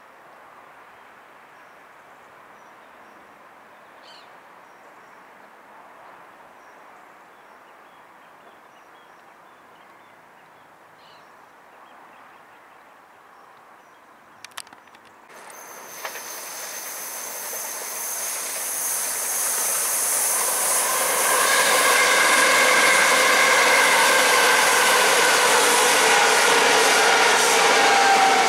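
A c2c Bombardier Electrostar electric multiple unit approaching and passing close at speed. Its rushing wheel and motor noise builds up over several seconds from about halfway through and carries several steady whining tones. Before that there is only quiet outdoor background with a few faint chirps.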